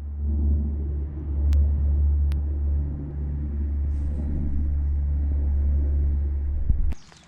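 A low, steady engine rumble with a faint hum over it, which stops suddenly near the end.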